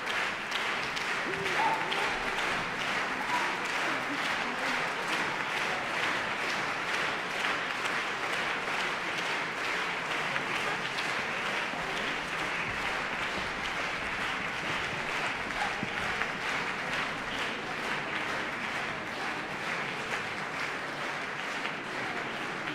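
Audience applauding, a dense, even clapping that holds steady throughout.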